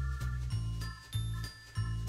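Background music: low bass notes about twice a second under light, bell-like tinkling tones.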